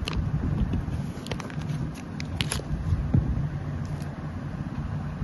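A steady low rumble with a few light clicks and taps as a ballpoint pen is handled.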